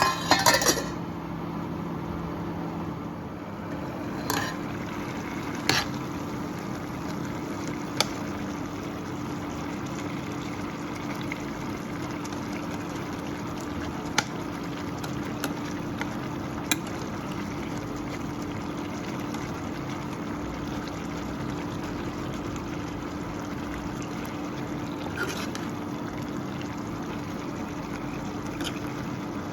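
Steady liquid hiss of food cooking in a pan, with a low hum underneath and a handful of sharp utensil clicks, a quick cluster of them right at the start.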